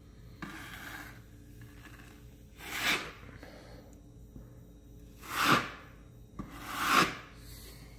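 Drywall trowel scraping across wet joint compound on a wall: three long strokes that each swell and stop sharply, with a fainter one near the start, smoothing a thin top coat over a patched hole.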